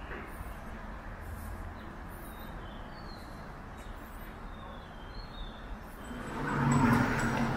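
Street ambience: birds chirping over a low background hum of traffic. About six seconds in, a motor vehicle comes up close and passes, and it is the loudest sound.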